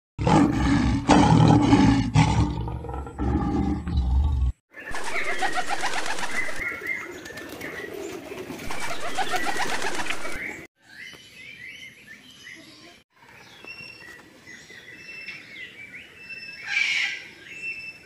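A flock of domestic pigeons cooing, with a busy flutter of wings, for about six seconds. Before it comes a few seconds of loud low rumble. After it, a quieter stretch with scattered short bird chirps and one louder call near the end.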